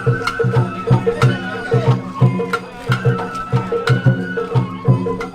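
Sawara-bayashi festival music: taiko drums beating a steady, even rhythm under a high bamboo flute melody, with sharp metallic clicks.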